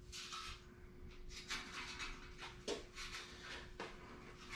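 Faint scattered clicks and knocks of a truck's header panel being handled and worked into place, over a steady faint hum.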